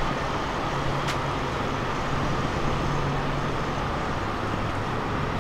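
Steady low mechanical hum with a constant low drone under it, like engine or machinery noise. A faint click comes about a second in.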